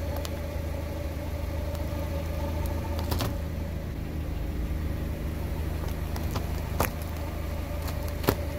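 Car engine running with a steady low hum as the tyre rolls slowly over bars of coloured soap, with a few sharp cracks as the bars break: about three seconds in, near seven seconds, and just before the end.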